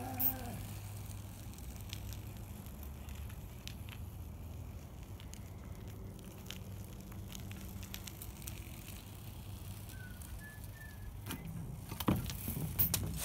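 BMX bike riding on asphalt over a steady low rumble. Near the end come a cluster of sharp knocks and clatter as the bike hits the cinder-block wall on a fakie wall ride and comes back down.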